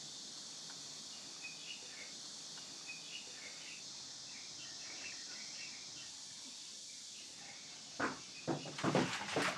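Faint, steady outdoor ambience: a high insect hum with scattered short bird chirps. About eight seconds in come a few sharp knocks.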